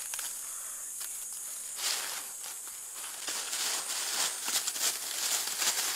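Dry bamboo leaves rustling and soil being scraped as a bamboo shoot is dug out by hand with a knife: a series of short swishes and scrapes, more frequent in the second half, over a steady high hiss.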